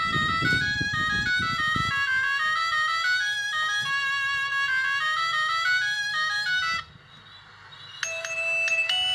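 FPT V6512 mobile phone playing a built-in ringtone: a simple electronic melody of stepped notes, with a low rumble under its first two seconds. The tune cuts off about seven seconds in, and a second later the next ringtone starts, a bell-like mallet tune.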